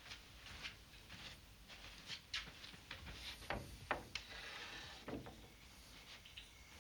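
Scattered soft knocks, clicks and rustling, a dozen or so faint taps with a couple of duller thumps about three and a half and five seconds in.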